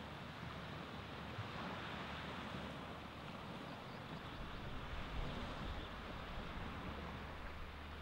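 Baltic Sea surf washing onto the beach: a steady, even rush of waves with a low rumble underneath.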